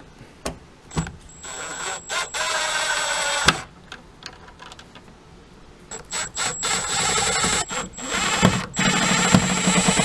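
Cordless impact driver running in two spells, driving small screws into a speaker's adapter ring: about two seconds of whirring early on, a pause, then a few short stop-start bursts and a longer run near the end.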